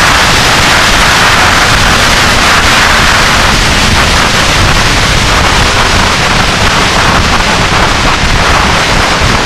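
Steady wind rush on the microphone of a 1999 Yamaha YZF-R6 riding at road speed: a loud hiss with rough, low buffeting underneath.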